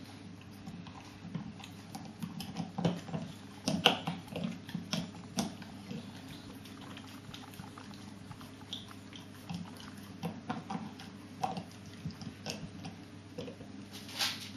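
A dog gnawing and crunching on a hard chew bone: irregular clicks and cracks of teeth on the bone, busiest a few seconds in and again near the end, over a steady low hum.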